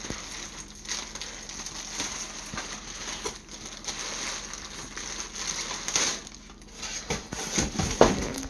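Packaging being handled and pulled apart: steady crinkling and rustling with many small crackles.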